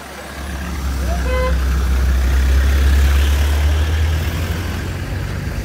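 A motor vehicle driving past close by, its engine noise swelling to its loudest about three seconds in and then fading. A short horn toot sounds about a second in.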